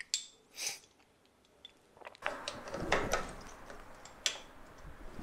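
Clinks and rattling of a steel pulley puller being handled and fitted onto the harmonic balancer of an engine. A few sharp clicks come near the start, then a busier stretch of metal knocks and scraping from about two seconds in.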